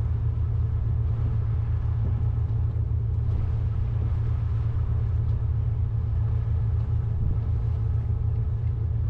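A steady low machine rumble that holds an even level throughout.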